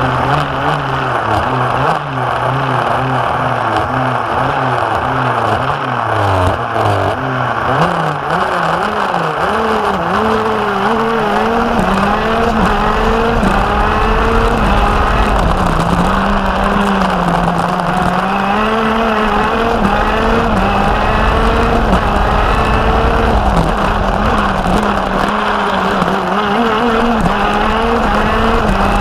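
Racing kart engine at speed, heard from on board, its pitch dropping as the kart slows for corners and rising again under acceleration, then holding high on the straights.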